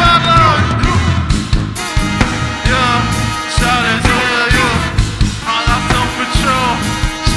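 Live brass band playing an instrumental passage, trumpets and horns carrying wavering lines over a steady drum beat.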